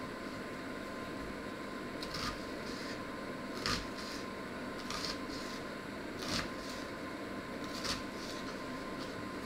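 A small kitchen knife knocking on a wooden chopping board about five times, at a slow, even pace, as it cuts through a small vegetable held in the hand. A steady hum runs underneath.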